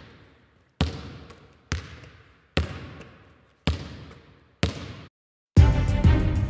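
A basketball bounced on a hard floor about once a second, five times, each bounce with a long hall echo. The bouncing cuts off, and loud music starts about five and a half seconds in.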